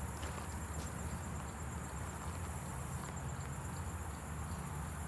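Steady high-pitched chorus of insects such as crickets, with a low rumble underneath and a few faint ticks like footsteps on the trail.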